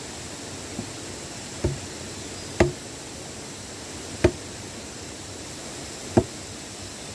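Chopping blows, a tool striking something solid: one faint blow and four clear ones at irregular spacing, about one every second or two, over a steady hiss.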